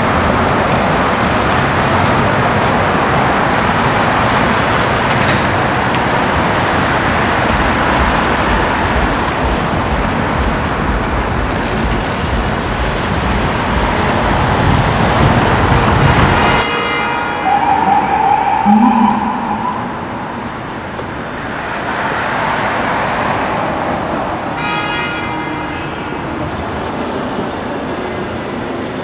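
City street traffic: a steady wash of passing cars. It cuts off abruptly a little over halfway in to a quieter traffic hum, where a short siren-like rising tone sounds.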